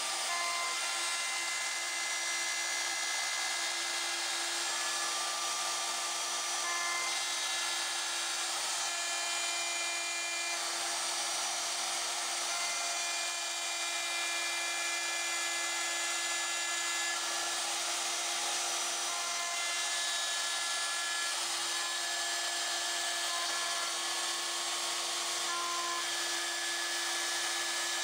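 Pilot Pro CNC router's spindle running with its end mill cutting aluminum: a steady, even whine and hiss, with higher tones that come and go as the cut moves.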